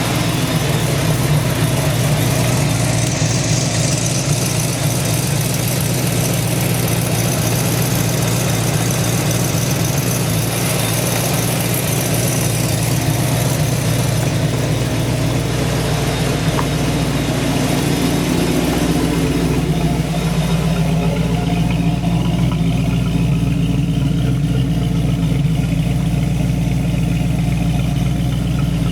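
Supercharged 5.0-litre V8 of a 1994 Ford Mustang GT, fitted with a Kenne Bell supercharger, idling steadily on its first run after a rebuild. The sound turns duller about twenty seconds in.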